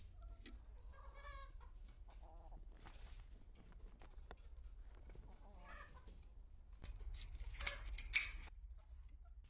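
Chickens clucking quietly, a few short calls spread out. About seven seconds in, a louder stretch of rustling and scraping with two sharp peaks.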